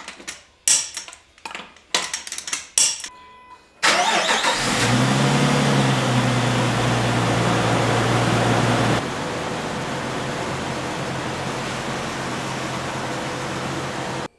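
A few short, sharp clattering bursts, then the Jeep Wrangler LJ's 4.0-litre inline-six starts about four seconds in and runs at a loud, steady fast idle. About halfway through the sound drops abruptly to a quieter, steadier running.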